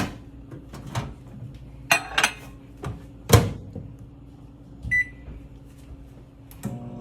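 Microwave oven being set going: a few knocks and clatter, the loudest about three seconds in as the door is shut, then a short keypad beep about five seconds in. Near the end the oven starts running with a steady hum.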